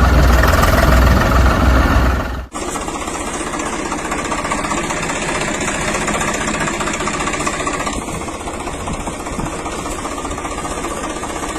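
A motor engine running steadily, with a heavy low rumble. About two and a half seconds in it cuts to a different, lighter steady engine sound.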